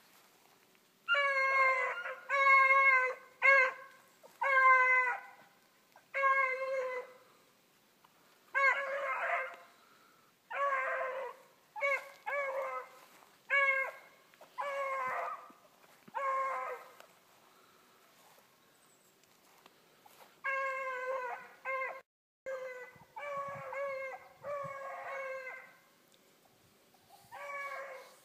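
Young beagles, about five months old, baying as they run a rabbit's trail: a string of bays, each under a second long, about one a second, with a break of a few seconds in the middle.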